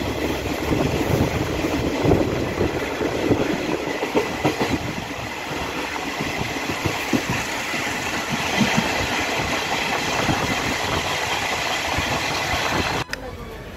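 Taiwan Railways blue ordinary-train passenger carriage running at speed, heard from its open window: wheels rumbling and clattering on the track with rushing air. The sound cuts off abruptly near the end.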